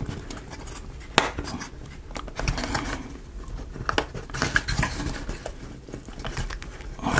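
Small wooden model-kit parts being handled and fitted by hand: irregular light clicks, taps and scrapes, with sharper clicks about a second in and again around four seconds.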